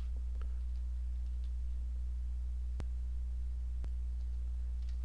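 Steady low electrical hum on the recording, with a few faint keyboard clicks as code is typed.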